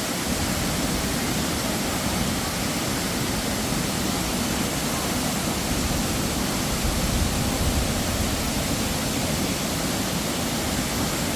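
Waterfall in full flow after heavy rain, plunging about 90 feet from a cliff rim: a loud, steady rush of falling water.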